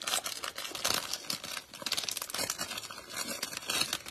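Plastic wrapper of a Mosaic Football trading-card pack crinkling and tearing as it is opened by hand, in dense, irregular crackles.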